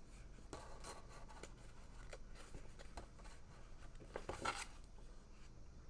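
Faint handling of sheets of die-cut kit pieces on sticker paper: light taps and paper rustling, with one louder rustle of paper about four seconds in.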